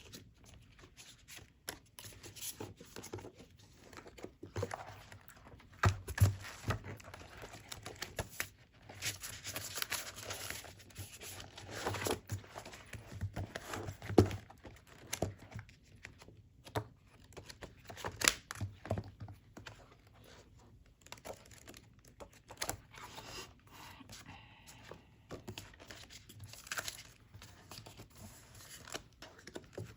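Paper and plastic packaging being handled and opened by hand: crinkling and tearing, with scattered light taps and knocks.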